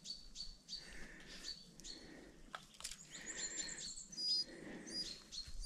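Small birds calling faintly, a short high chirp repeated over and over, with a brief higher trill and a few clear whistled notes about three to five seconds in.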